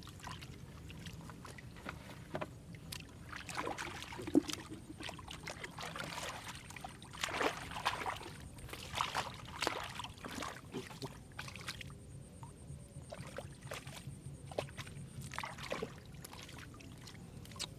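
Irregular splashing and sloshing in shallow muddy water, a string of uneven wet slaps and swishes, as when hands dig and grope through mud for catfish.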